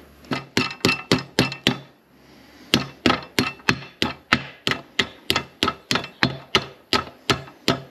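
Hammer tapping a coupling ring into the drive module housing of a New Holland disc mower: a quick run of sharp knocks, a pause of about a second, then steady knocks about four a second.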